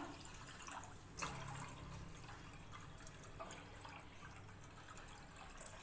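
Water poured from a plastic cup into a stainless-steel pan, a faint steady splashing stream into the pooling water.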